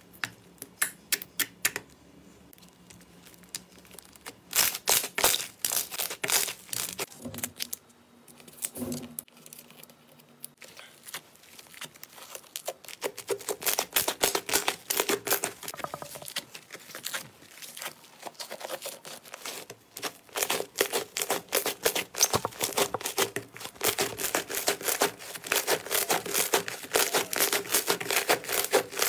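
Hands kneading slime: poking and pressing a clear glitter slime gives sparse sticky clicks and pops, then stretching and squeezing a thick white slime gives a dense run of crackling, tearing pops that grows louder toward the end.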